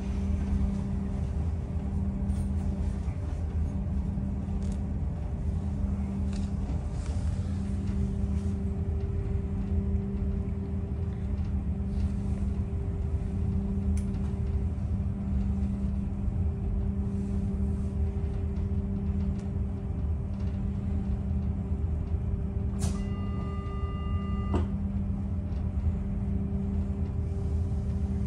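Steady low hum and rumble of an ÖBB class 4020 electric multiple unit's onboard equipment, heard from inside the passenger saloon while the train stands at a platform. About 23 seconds in, a brief electronic tone sounds for about a second and a half, starting and ending with a click.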